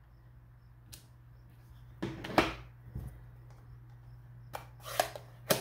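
Handling of stamping supplies, an acrylic stamp block and a plastic ink pad, on a craft desk: scattered light clicks, taps and knocks as they are pressed, lifted and set down. The clicks bunch about two seconds in and again about five seconds in, over a low steady hum.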